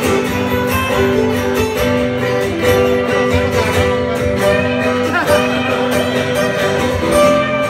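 Two acoustic guitars playing an instrumental passage together, steady, held notes ringing on through the whole stretch with no singing.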